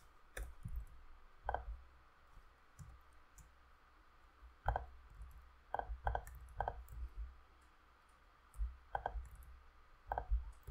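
Computer mouse and keyboard clicking at irregular intervals: about seven sharp clicks, several bunched together in the middle, with soft low thumps between them.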